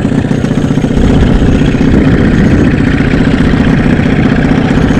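Boat's outboard motor idling in neutral, a steady, fast low pulsing that gets slightly louder about a second in.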